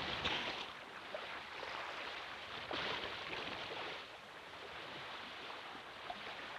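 Water rushing and lapping, a sound effect for a large sea animal swimming through the sea, swelling at the start and again about three seconds in.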